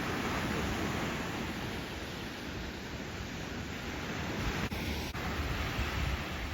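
Small surf washing and breaking on a sandy beach, a steady hiss and rumble of ocean noise, with offshore wind buffeting the microphone. Two brief drops in level come about a second before the end.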